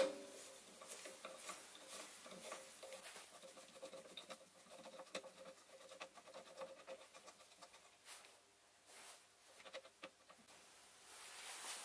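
Faint, rapid scratching and light metallic clicks of a Sieg SC3 mini lathe's compound slide being wound in by hand on its leadscrew, the slide and gib strip sliding along the dovetail.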